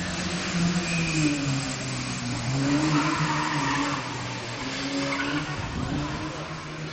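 Rally car engine revving hard as the car drives past, its note climbing and dropping several times.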